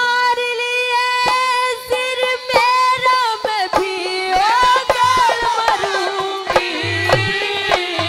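Live Haryanvi ragni music: a sung melody held on long steady notes, then bending and wavering, over scattered hand-drum strokes.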